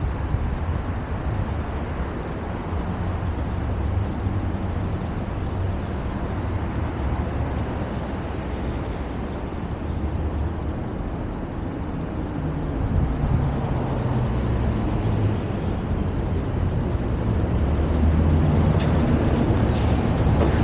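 Steady low rumble of vehicle and road noise, growing somewhat louder in the last few seconds.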